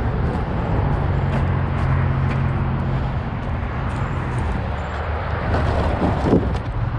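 Motor vehicle engine running close by, a steady low hum over road noise that grows about a second in and eases near the end.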